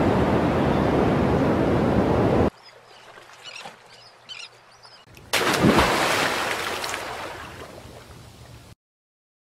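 Ocean-surf sound effect for a logo intro: a steady rush of surf that cuts off abruptly about two and a half seconds in, a quiet stretch with faint high squeaks, then a sudden wave crash about five seconds in that slowly fades away.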